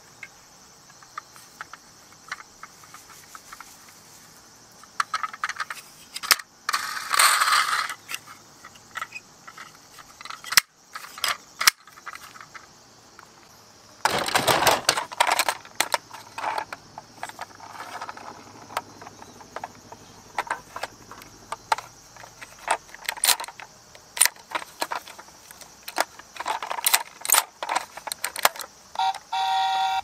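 Plastic toy trucks being handled and knocked against each other and the box: scattered clicks, clacks and rattles, with denser rattling around 7 seconds and again around 14 to 16 seconds. About a second before the end, the toy fire engine's electronic sound starts up as a pitched tone when its roof buttons are pressed.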